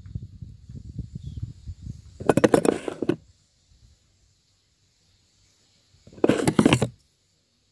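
Crackling rustle of hair being handled close to the microphone: soft handling noise for the first few seconds, then two short, sharp bursts of crackle about four seconds apart.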